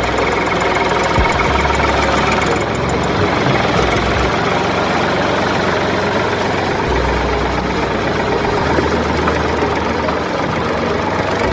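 A machine running steadily, with an engine-like idle and a low rumble that comes and goes.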